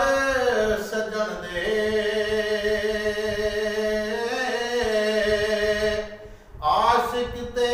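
A man singing Punjabi Sufi verse unaccompanied, holding one long note with small bends in pitch for about six seconds. He breaks off briefly for a breath and starts the next phrase near the end.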